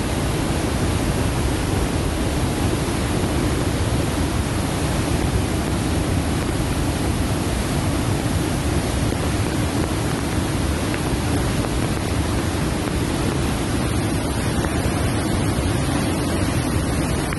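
Flash-flood torrent of muddy water rushing through a rocky wadi: a loud, steady, unbroken rush of water.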